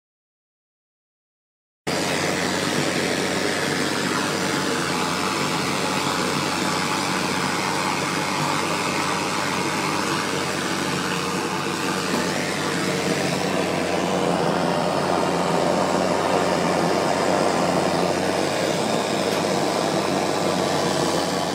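Gas blowtorch burning with a steady noise as it melts the bitumen at an asphalt roofing membrane seam. It starts suddenly about two seconds in, after silence.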